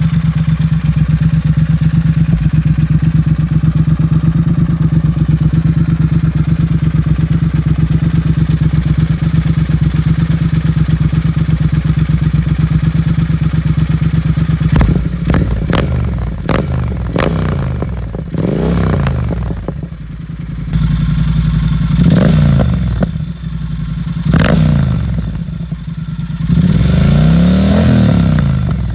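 Triumph Thruxton R's 1200 cc parallel-twin engine, breathing through a short stainless-steel Dustland slip-on muffler, idling with a steady, even pulse. About halfway through it is revved in a series of sharp throttle blips, each rising and falling quickly, then held in a longer rev that rises and falls near the end.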